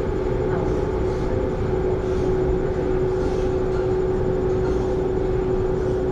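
Cabin noise of an elevated metro train running at a steady speed: a constant low rumble with a steady droning hum.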